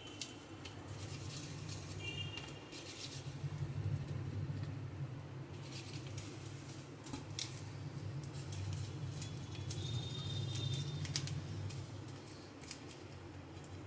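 A hand rubbing turmeric and salt into raw hilsa fish pieces on a steel plate: soft wet handling noises with scattered light clicks, over a steady low hum. Two brief high chirps come about two seconds in and about ten seconds in.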